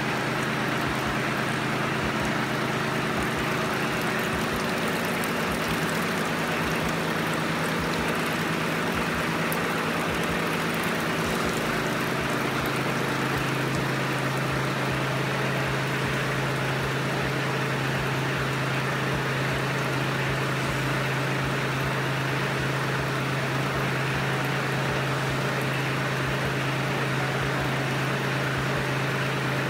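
Kubota compact tractor's diesel engine running steadily, powering the loader hydraulics that drive the apple press. Its low hum gets louder about twelve seconds in.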